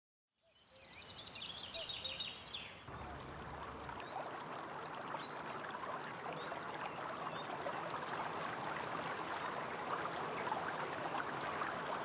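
Small birds chirping for the first couple of seconds. Then, from about three seconds in, the steady rush and ripple of a river flowing over stones.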